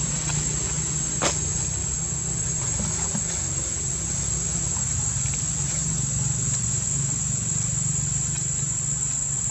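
Steady high-pitched drone of insects, like cicadas or crickets, over a louder steady low rumble, with one sharp click about a second in.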